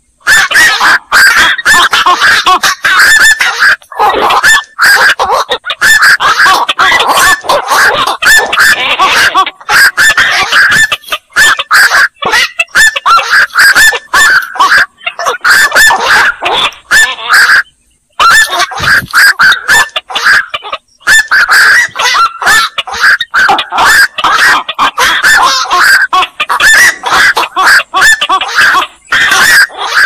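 Black-crowned night herons (burung koak) calling, with many short calls in quick succession broken by a few brief pauses.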